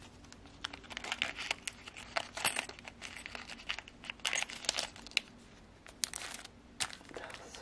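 Small plastic bags rustling and crinkling while small metal charms click and clink against each other as they are handled.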